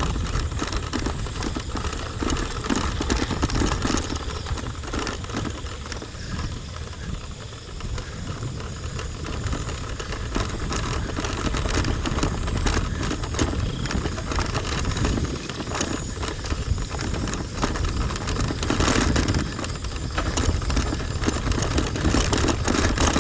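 Wind buffeting the microphone of a camera on a moving bicycle, with the bike rattling and clattering over a rough road surface.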